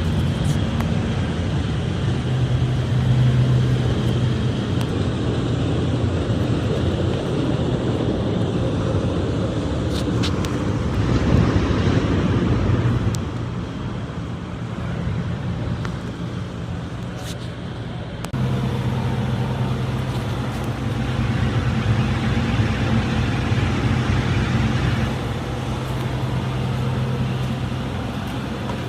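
A large engine running steadily, its tone changing abruptly about two-thirds of the way through, with a brief louder stretch and a few clicks along the way.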